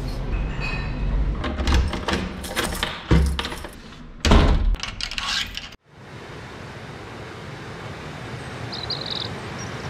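Clunks and rattles of a hotel room door's metal lever handle and latch being worked with a key card, two of the knocks much louder than the rest. Cut off suddenly at about six seconds by a steady rushing hiss of a waterfall.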